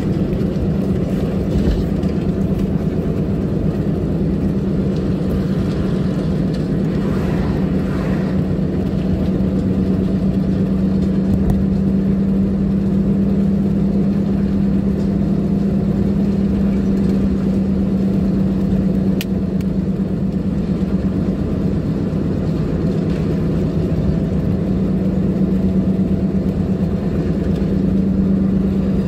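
Car driving at steady road speed, heard from inside its cabin: an even engine and tyre drone with a constant low hum.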